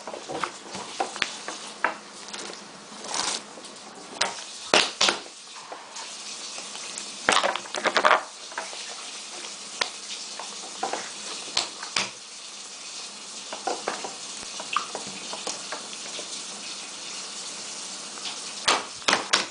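Purple slime with pom-poms in it being squished and kneaded by hand: an irregular run of wet clicks and small pops.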